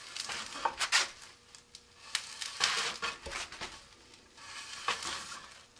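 A marker pen scratching a line around a rocket's coupler tube while the nose cone and coupler are turned in gloved hands. Irregular rubbing and scraping with a few light knocks.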